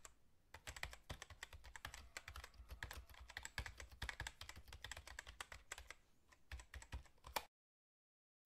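Computer keyboard typing sound effect: quiet, rapid, irregular key clicks, cutting off abruptly about a second before the end.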